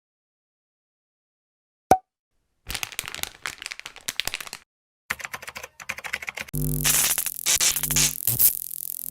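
A sharp click, then runs of rapid clicking and crackling from small plastic parts being handled and pried, typical of taking a small Bluetooth speaker apart; near the end a steady buzzing hum comes in under the crackle.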